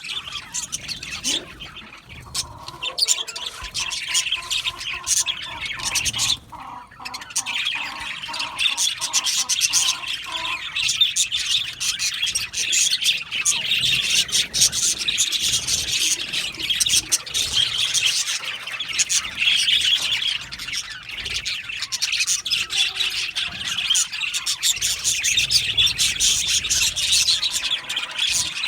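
Flock of budgerigars chattering and chirping, with many rapid overlapping calls and squawks and a brief lull about six seconds in.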